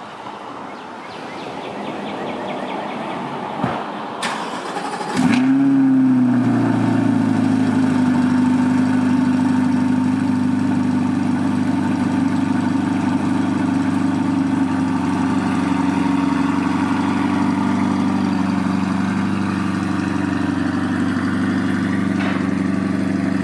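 Chevrolet C8 Corvette's 6.2-litre LT2 V8 on a cold start. After a couple of sharp clicks, it catches about five seconds in with a quick flare in revs, then settles into a steady idle.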